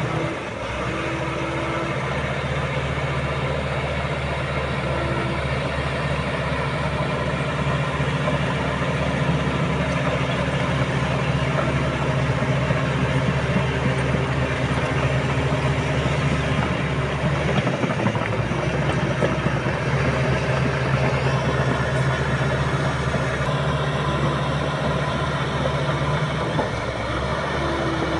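Komatsu D85SS bulldozer's diesel engine running steadily.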